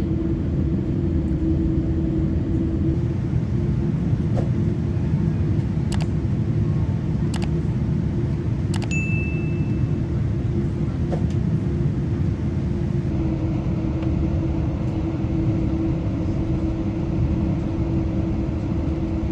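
Steady cabin rumble inside a Boeing 787-10 during pushback with the engines running, under a constant low hum. A few light clicks, and a single short high chime about nine seconds in.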